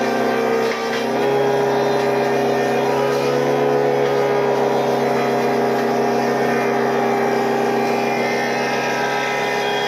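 Woodworking machine in a sawmill running steadily with a constant motor hum, dipping briefly a little under a second in.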